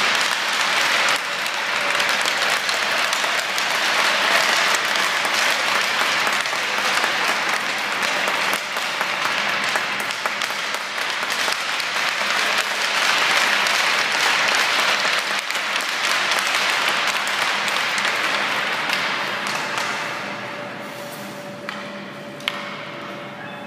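Spectators applauding in an ice rink, a dense, steady clapping that dies away near the end.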